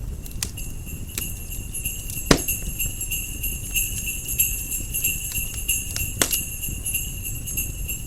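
Sleigh bells jingling steadily over a crackling fireplace, with two sharp pops from the fire, one about two seconds in and one about six seconds in.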